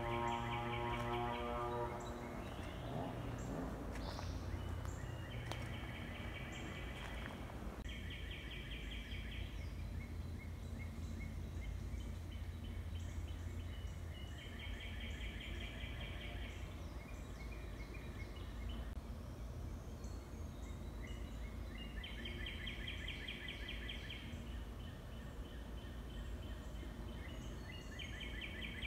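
A high, rapid trill, about two seconds long each time, repeated every several seconds over a steady low rumble of outdoor background noise.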